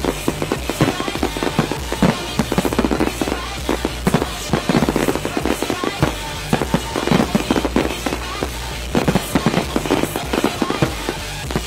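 Aerial fireworks shells bursting in a dense, irregular volley of several bangs a second.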